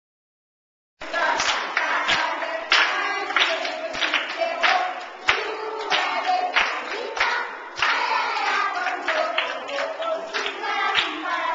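A group of young schoolchildren singing a greeting song together, clapping their hands on a steady beat of roughly one and a half claps a second; it starts suddenly about a second in.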